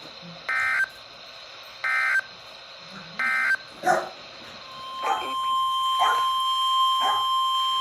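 Weather radio sounding an Emergency Alert System alert: three short, raspy digital data bursts, then from about halfway through a steady, piercing single-tone alarm. A dog barks several times over the alarm.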